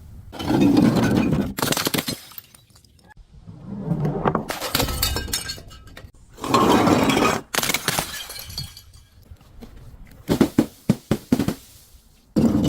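Glass being broken and crushed: three loud crunching, shattering bursts of about a second each, then a quick run of sharp cracks near the end.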